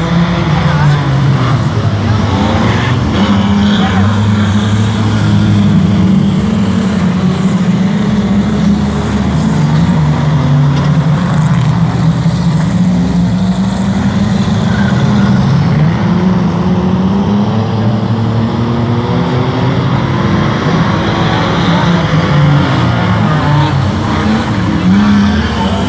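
A pack of speedway stockcars racing on a dirt oval, several engines running hard at once. Their notes rise and fall over one another as the cars accelerate and lift around the track.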